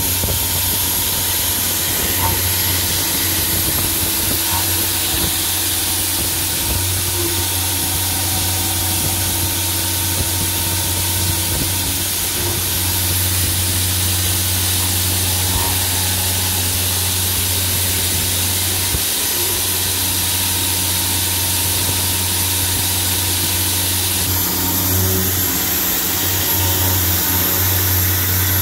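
UDM-2216 CNC machining center milling steel with a Palbit Tetrafeed high-feed face mill (five inserts) in an interrupted cut over holes: a steady machining hum of spindle and cutter under a constant hiss, changing slightly in tone a few seconds before the end.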